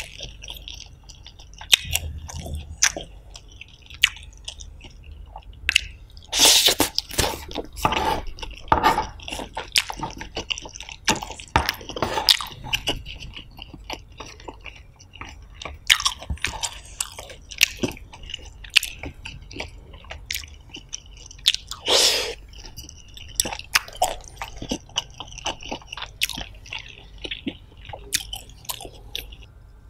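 Close-miked chewing of fried noodles: wet, smacking mouth sounds and short clicks in irregular bursts, with louder stretches about a quarter of the way in and again near three-quarters through.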